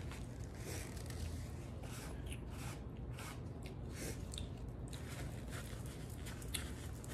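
Faint scattered crinkles and soft clicks of a paper napkin wiping the mouth and hands, over a low steady hum.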